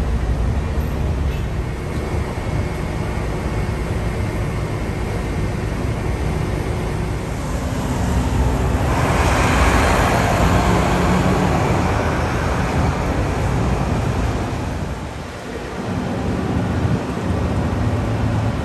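Road traffic: a steady low rumble of vehicles running, with one passing close that swells and fades in the middle.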